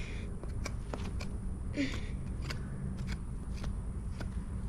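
Metal hoof pick scraping and clicking in a miniature horse's hoof as the packed dirt is picked out, a short sharp scrape about twice a second.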